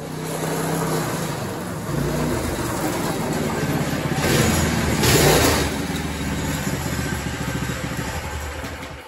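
Small gas engine of a go-kart fitted with a torque-converter drive, running as the kart drives in and pulls up close. It is loudest about four to five and a half seconds in, then runs steadily.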